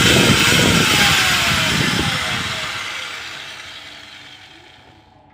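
A small motor running with a rough whir that winds down, its whine falling steadily in pitch as the sound fades away over about four seconds.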